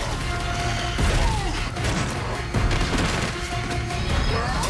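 Tense TV score music under fight sound effects: several heavy thuds and crashes as a person is beaten and thrown to the floor.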